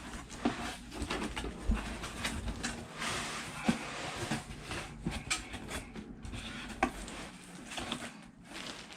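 Cardboard shipping box and its packing being handled and opened by hand: irregular rustling with many scattered clicks and knocks.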